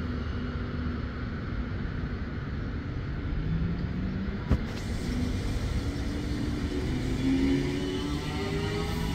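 Sydney Trains K set double-deck electric train pulling out and rumbling past, its motor whine rising in pitch as it gathers speed. One sharp knock about four and a half seconds in.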